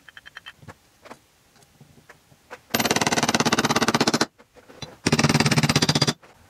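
Ratchet wrench clicking very fast and evenly in two runs, the first about a second and a half long and the second about a second, as it works fasteners on an aluminium engine case. A few small metal ticks come just before.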